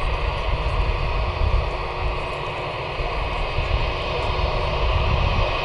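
Airbus A320's twin jet engines running with a steady whine over a low rumble as the airliner moves along the runway at the start of its takeoff, growing slightly louder near the end.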